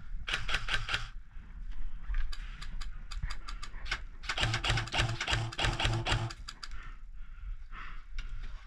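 Airsoft guns firing: volleys of rapid sharp clicks, a short burst right at the start, a few scattered shots, then a longer dense burst with low thumps about four times a second in the middle.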